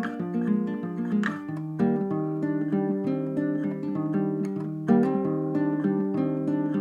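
Background music: acoustic guitar picked and strummed, with clear sustained chords.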